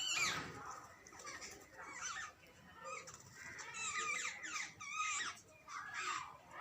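Jungle babblers calling: a run of harsh, wavering squeaky chatter in bouts of overlapping calls, the noise of adults with begging young.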